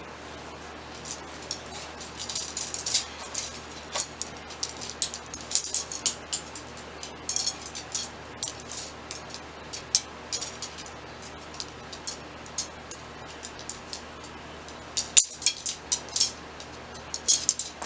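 Tent support rods clicking and rattling as they are pushed through the tent's pole sleeves: irregular light clicks and scrapes, with a louder cluster of clicks near the end.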